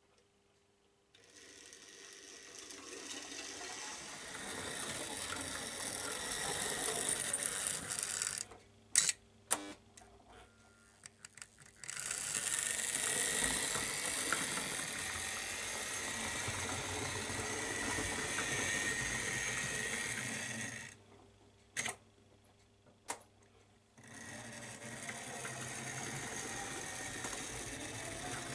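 Model steam locomotive's small electric motor whirring as it runs along the track with its wheels rolling on the rails, in three runs with two stops. Sharp clicks come during the stops.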